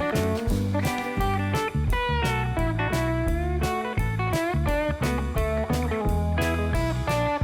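Background music: an electric guitar line with bent notes over bass and a steady beat.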